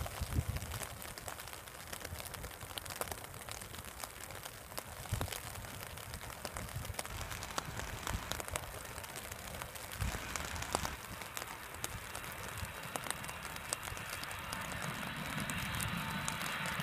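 Jet airliner on approach, its engine noise growing steadily louder through the second half, over faint scattered crackling clicks.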